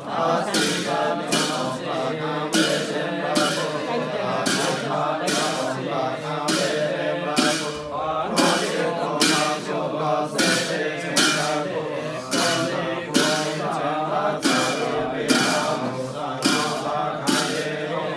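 Men's chanting over a steady beat of sharp strikes, about two a second.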